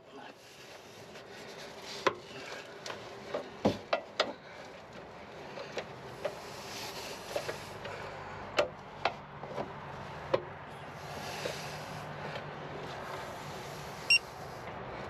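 Scattered metallic clicks and knocks from a ratchet-head torque wrench on a 21 mm socket as the steering rack mounting nut is torqued to 81 ft-lb, in two loose clusters. A brief high tone sounds near the end.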